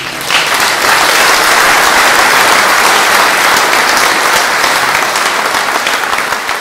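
An audience applauding: the clapping breaks out suddenly, fills out within the first second, holds steady, and eases slightly near the end.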